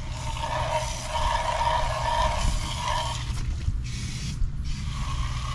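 Garden hose-end sprayer hissing as it sprays foaming coil cleaner onto an AC condenser coil. It sprays for about three seconds, stops, and starts again about a second later.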